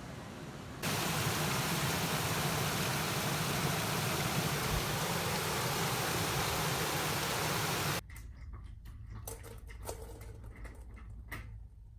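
A loud, steady hiss like white noise or static that starts about a second in and cuts off suddenly about eight seconds in. A few soft clicks and knocks follow over a low hum.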